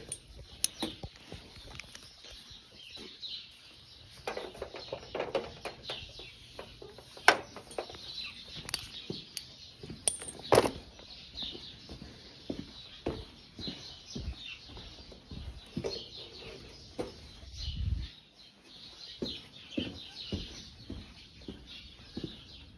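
Birds chirping over and over, mixed with scattered knocks and rustles of someone walking across a barn floor while handling a phone, with a low thud near the end.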